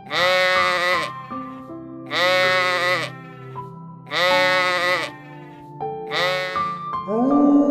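An animal bleating four times, each call about a second long and arching in pitch, about two seconds apart, the last one shorter. Background music with sustained tones plays under the calls and swells near the end.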